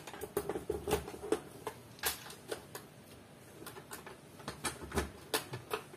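Irregular clicks and light knocks from the lock panel and door of a small electronic fingerprint-and-keypad safe being unlocked by hand, about a dozen sharp taps with no beeps.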